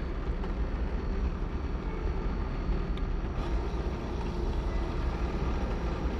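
Steady low rumble of a ferry's engines and machinery heard from inside the ship, with a couple of faint clicks.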